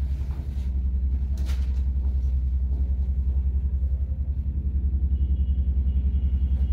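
A steady low machine hum with a fast, even pulse, with a brief rustle of cloth about one and a half seconds in as a printed dupatta is shaken open.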